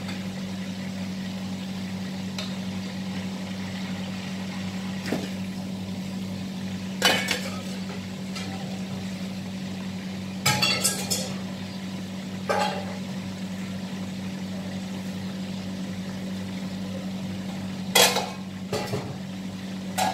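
Metal tongs and spatula clattering against a wok and plates several times while chicken fries, the loudest knocks about seven, eleven and eighteen seconds in, over a steady low hum.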